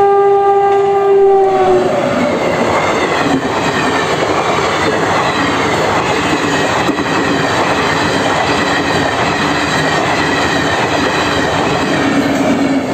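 Electric locomotive horn sounds for about two seconds, its pitch sagging as it ends. It is followed by the steady rumble and clatter of a passenger train's coaches passing.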